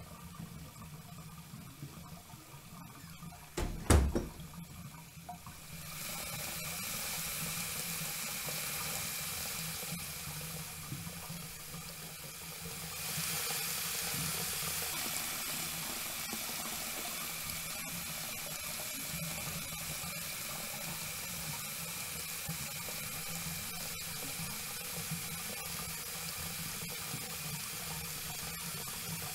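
A single sharp knock, then water starts running steadily from a tap about six seconds in and gets louder about thirteen seconds in, as a man rinses his face over a basin.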